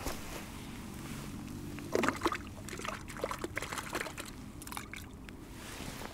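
Water sloshing and splashing as a keepnet full of small fish is dipped and tipped into a lake, releasing the catch. The splashes start about two seconds in and come in irregular bursts.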